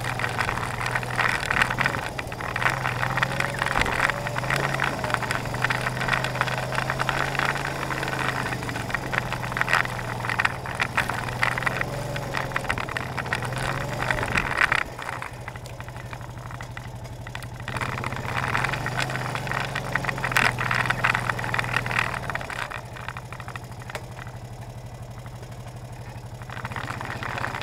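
ATV engine running at low speed over a rough trail, with a steady low drone and a dense clatter of rattles and bumps from the ride. The clatter drops away and the engine runs quieter and steadier twice: about fifteen seconds in for a few seconds, and again near the end.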